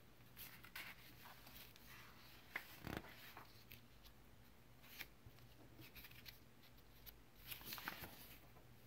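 Very faint rustling and sliding of paper worksheets being shuffled on a desk, with a few soft scrapes and taps, a little louder about three seconds in and again near the end.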